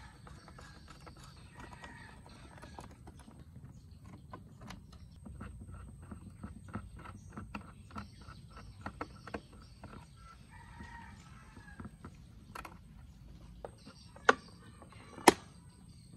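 A screwdriver turning a screw into a portable transistor radio's plastic case to fix its carrying handle: small clicks and ticks, coming several a second in the middle, then two sharp plastic knocks near the end. Chickens cluck faintly in the background.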